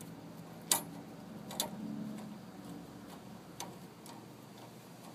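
Metal brake parts of a Craftsman lawn tractor clicking and clinking as they are fitted by hand onto the transaxle. There are three sharp clicks: the loudest under a second in, one about a second later, and a lighter one near the end.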